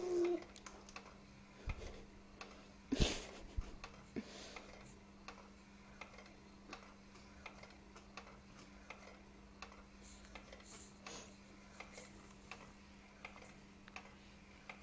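Quiet room with a steady low hum and faint scattered ticks and clicks, and one short louder rustle about three seconds in; the raspberry noises have stopped.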